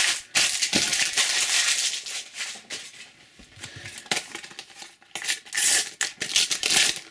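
Panini sticker packets being torn open and crinkled by hand, with loose stickers rustling. The crackling comes in bursts, dropping off for a couple of seconds in the middle and returning near the end.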